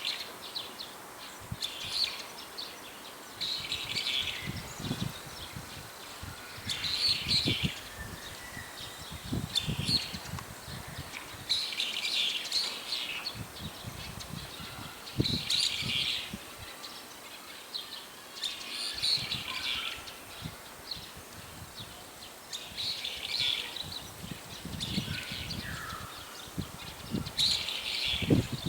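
Brown-eared bulbuls calling: loud, high-pitched calls about a second long, repeated every two to three seconds, from more than one bird.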